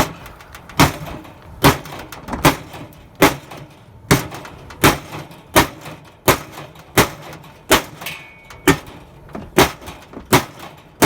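Hammer striking the metal of an air conditioner unit again and again, about one blow every three-quarters of a second, each hit ringing briefly.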